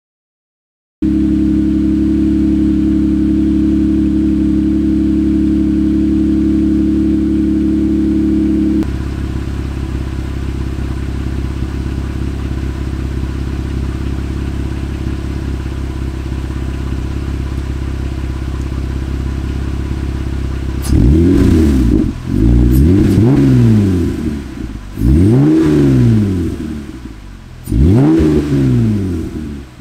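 2018 Jeep Wrangler JL engine heard through a freshly installed aFe Power Rock Basher 3-inch 409 stainless steel cat-back exhaust, not yet broken in. It idles steadily when warmed up, then is revved four times near the end, each rev rising to about 3,000 rpm and falling back.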